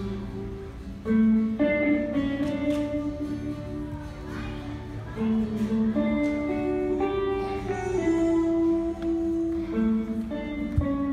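Guitar playing a slow melody of single held notes, one after another.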